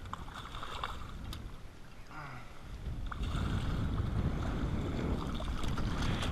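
Wind rumbling on the microphone, getting louder about halfway through, with a few light knocks.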